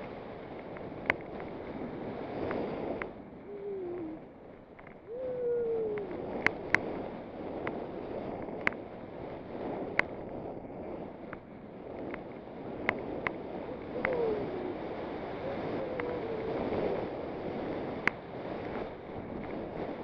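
Snowboard sliding through snow: a steady rushing hiss of the board over the snow mixed with wind on the microphone. About a dozen sharp clicks at irregular spacing stand out above it, with a few short sliding squeaks.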